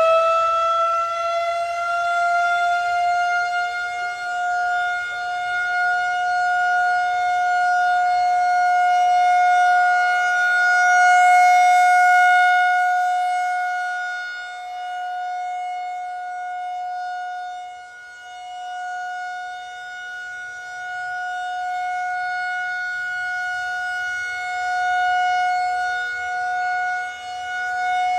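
Federal Signal 2001-130 AC outdoor warning siren sounding a steady alert tone. It settles at full pitch in the first second, then holds one steady tone, and its loudness swells and fades slowly as the rotating siren head sweeps past and away.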